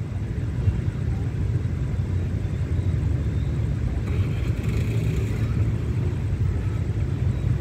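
Steady low engine rumble, with a faint higher hiss for about a second and a half around four seconds in.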